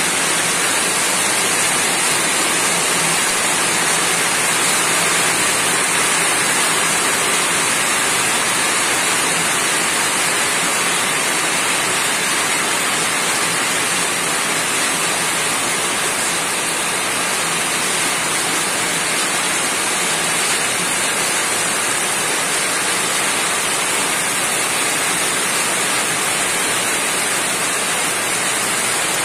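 Rain falling on a roof, a steady, unbroken hiss that does not change in level.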